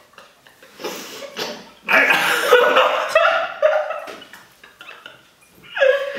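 Laughter and breathy, strained vocal sounds from people with hot red chili pepper in their mouths, loudest from about two seconds in.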